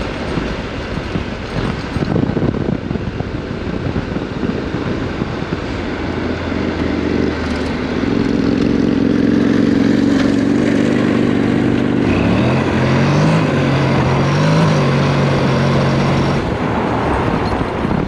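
Honda NC700X motorcycle riding over dirt, with rough wind and tyre rumble at first. About eight seconds in the engine note comes up strong and steady, and it rises in pitch twice as the revs climb, then drops back.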